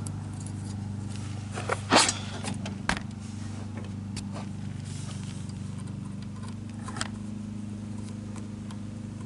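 Scattered sharp metal clicks and taps as a cotter pin and washer are worked against the end of a riding mower's steering tie rod. The strongest click comes about two seconds in, over a steady low hum.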